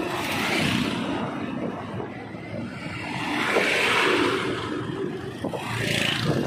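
Riding noise from a moving motorcycle: the engine running under wind rushing over the microphone and road noise, swelling and easing a few times.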